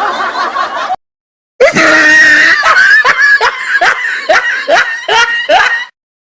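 Laughter sound effects. A chuckling laugh ends about a second in, then after a short silence a loud, high-pitched laugh starts with a long cry and breaks into about nine quick bursts of "ha".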